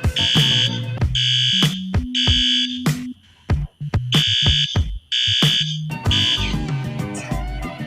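Electronic music with a drum-machine beat and a stepping bass line, carrying rhythmic fire-alarm-style horn beeps of about half a second each. The music cuts out sharply to near silence about three seconds in, then picks up again.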